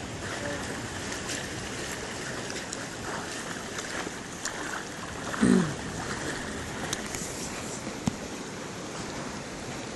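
Shallow seawater sloshing and splashing steadily around a man wading and a Rottweiler swimming on a leash. About five and a half seconds in comes one short, low voice sound that falls in pitch.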